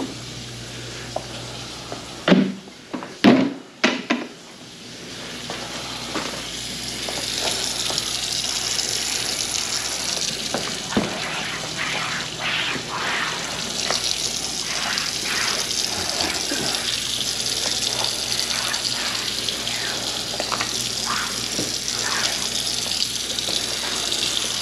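A few loud knocks and clatters in the first few seconds, then a kitchen faucet running steadily into a sink whose drain has just been cleared of grease.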